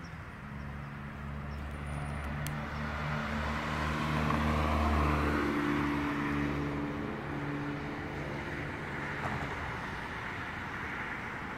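Fiat 500 Abarth's turbocharged 1.4-litre four-cylinder driving past, its steady engine note and tyre noise growing to a peak about five seconds in and then fading as it moves away.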